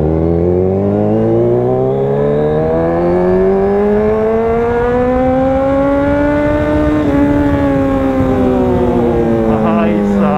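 Kawasaki superbike's inline-four engine pulling under throttle, its pitch climbing smoothly and steadily for about seven seconds, then falling slowly as the throttle is eased back.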